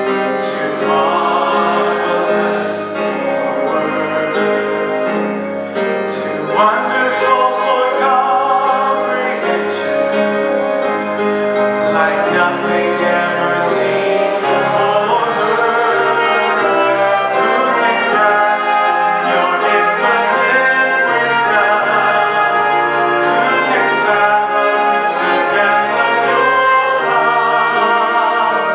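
Church ensemble of trumpets, trombones, French horn, violins, piano and organ playing a slow worship song, with held notes that waver.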